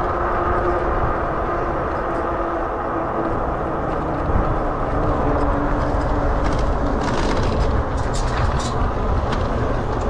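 Wind buffeting the action camera's microphone and tyre rumble from an e-bike coasting downhill on a dirt trail, a steady loud rush. A few light clicks and rattles about seven to nine seconds in.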